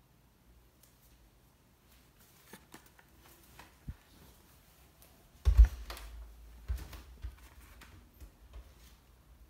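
Handling noises from working with a roll of double-sided mounting tape at a window frame: scattered light clicks and taps, with a loud thump about five and a half seconds in and a smaller one about a second later.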